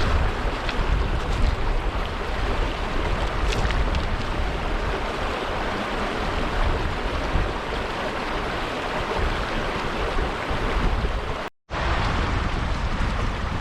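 Wind buffeting the microphone: a steady rushing noise with heavy low rumbling. It cuts out completely for a split second about eleven and a half seconds in.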